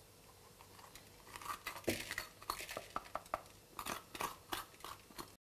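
Faint crisp snaps and crackles of hands pulling the seed cores out of raw bell peppers and handling the pepper shells, starting about a second and a half in.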